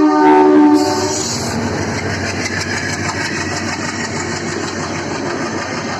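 WDM3A diesel locomotive's horn sounding and cutting off about a second in, then a passenger train of LHB coaches rolling past with steady rumble and wheel clatter.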